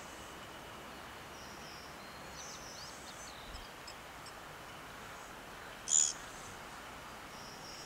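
Open-air ambience: a steady faint hiss with small birds chirping now and then, and a faint insect trill. About six seconds in comes one brief, sharp, high chirp, much louder than the rest.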